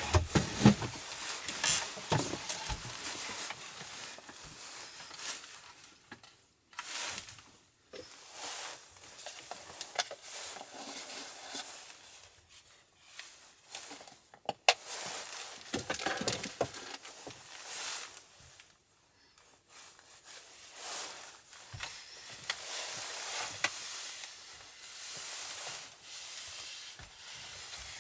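Hands working at a wooden table: a few light wooden knocks near the start, then paper rustling as tissues are pulled from a box, and a tissue rubbing over the wooden tabletop in short strokes.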